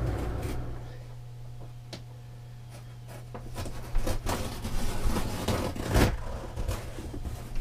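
Large cardboard furniture box being handled and shifted across the floor: rubbing and scraping with several knocks, the loudest thump about six seconds in. A steady low hum runs underneath.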